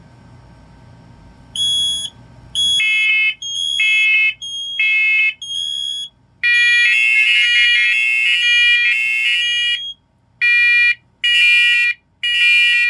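Several interconnected First Alert smoke and carbon monoxide alarms sounding together in test mode. One shrill beep starts about a second and a half in, and more alarms at different pitches join about a second later, their beeps overlapping in repeated groups with short pauses.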